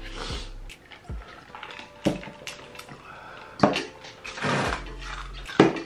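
People eating fiery-hot instant noodles: slurping and chewing with hissing breaths drawn through the mouth against the chili heat. About three sharp knocks of tableware ring out along the way, the last the loudest.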